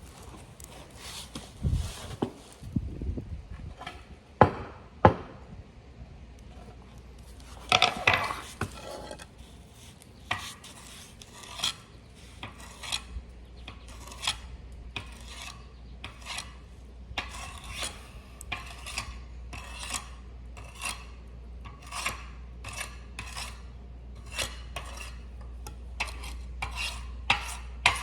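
Metal hand tools working on metal parts: repeated short clinks and scrapes, irregular at first, then a fairly even run of sharp strokes about one or two a second from about ten seconds in.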